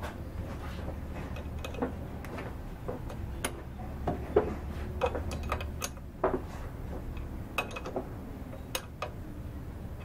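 Wrench clinking on a go-kart reverse cable's jam nut and fitting as it is tightened: scattered metallic clicks and taps, over a low hum that fades about six seconds in.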